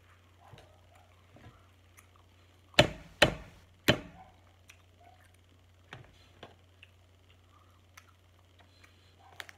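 Snow crab leg shells being cracked and snapped apart by hand. Three sharp, loud cracks come close together about three seconds in, followed by a few fainter clicks of shell.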